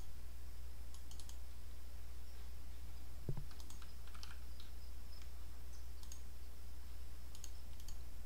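Computer mouse clicks while browsing a file dialog, several of them quick double-clicks, over a steady low hum. There is a soft thump about three seconds in.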